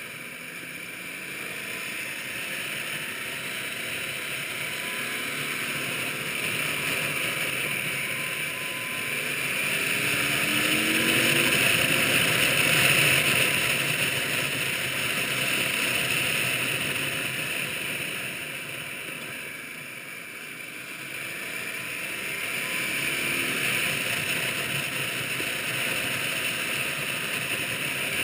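Motorcycle riding at speed, heard from on board: a steady rush of wind over the microphone with the engine running underneath, its pitch rising a couple of times. The rush swells to its loudest a little before the middle, then eases.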